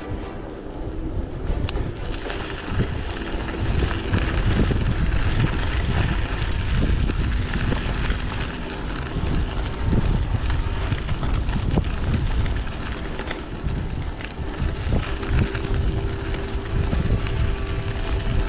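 Wind buffeting the microphone on a moving bicycle, over the steady noise of its tyres rolling on a gravel path.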